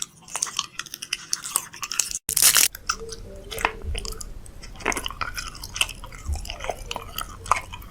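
Chewing on something crunchy: a quick, uneven run of crisp crunches and clicks, broken by a short cut a little over two seconds in.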